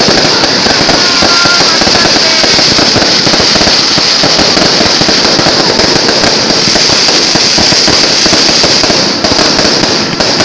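Fireworks going off in a dense, continuous barrage of rapid crackling pops with a steady high hiss, easing briefly near the end.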